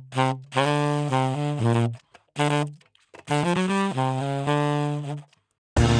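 Background music: a solo wind instrument plays short held phrases broken by dead-silent pauses, then the full band comes in just before the end.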